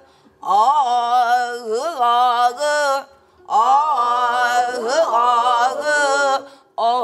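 A woman singing two phrases of Namdo folk song (minyo) in a shaking, heavily ornamented voice that rolls the pitch up and down, with a short breath-pause about three seconds in.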